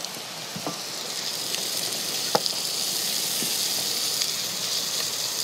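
Chopped onion and celery sizzling in olive oil in a stainless steel pot on a portable gas burner, frying at the start of a soup base. The sizzle grows a little louder about a second in, and there are a couple of light clicks of the stirring utensil against the pot.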